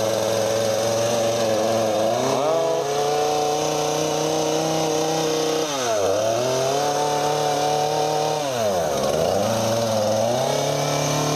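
Husqvarna 236 two-stroke chainsaw engine running after a cold start, its speed sagging and coming back up three times, about two, six and nine seconds in.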